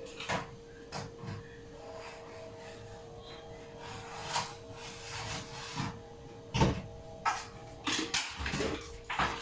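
Kitchen handling noises: a few scattered knocks and scraping rubs as containers are moved about, over a steady hum.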